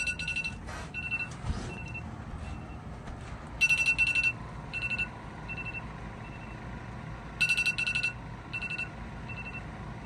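Smartphone alarm ringing: three clusters of rapid, high-pitched beeps about every four seconds, with fainter single beeps between them.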